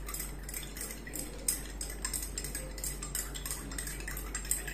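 A metal spoon stirring liquid in a tumbler, clinking against its sides in a quick, steady run of several clinks a second. The spoon is dissolving sugar and salt into lemon water.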